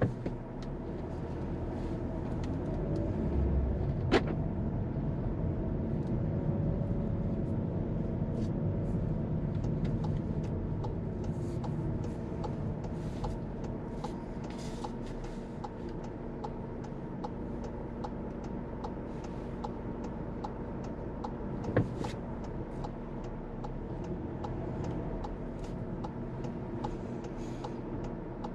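Car engine and road noise heard from inside the cabin, swelling as the car pulls away from a junction and easing off after about twelve seconds. A light ticking of the turn-signal indicator runs through it, with two sharp knocks, one about four seconds in and one near twenty-two seconds.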